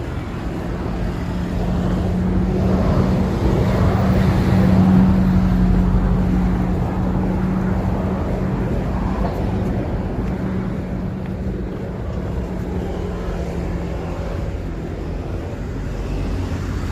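City street traffic noise with a vehicle's steady low engine hum, growing louder to a peak about five seconds in and then slowly fading as it passes.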